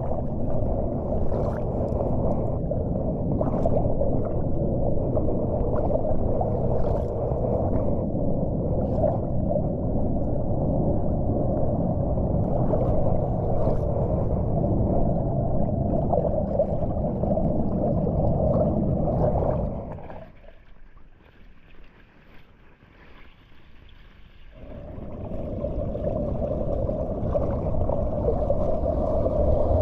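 Floodwater rushing and gurgling steadily as it pours into a street storm drain being cleared of leaves and debris, with small splashes from hands working in the water. The sound drops away to much quieter for a few seconds about two-thirds of the way through, then comes back.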